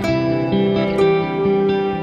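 Background music: plucked guitar notes, a gentle melody changing every half second or so.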